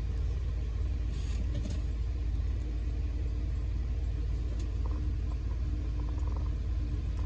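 Steady low background rumble, with a brief scrape about a second in and a few faint clicks of small parts being handled during assembly.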